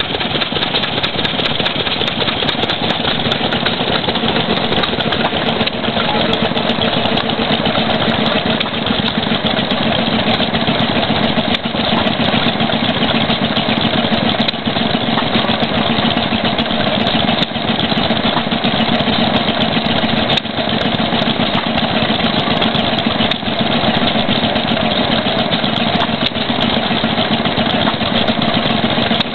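Vintage single-cylinder stationary engine running steadily at slow speed.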